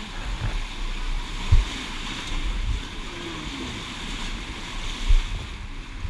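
Rushing, churning white water around a circular raft boat on a river rapids ride, with a couple of short low thumps about a second and a half and five seconds in.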